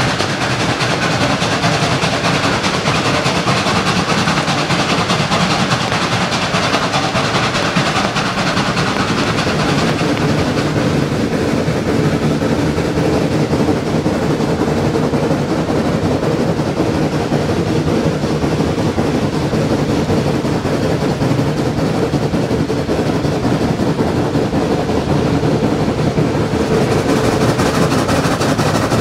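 Shay geared steam locomotive and its train running on the rails, a loud, steady, unbroken sound.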